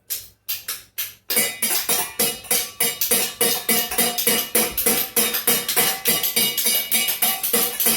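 Spoons played as a percussion instrument: a few separate sharp clacks, then from just over a second in a fast, steady clicking rhythm.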